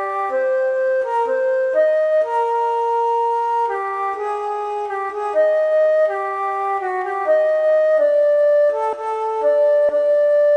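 A Nokia 3310 ringtone playing a simple electronic melody of held notes, changing pitch every half second to a second and a half.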